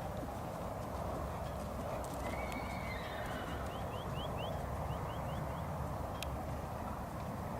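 A bird calling: a quick run of about a dozen short rising chirps, starting about two seconds in and stopping about six seconds in, over a steady background rush.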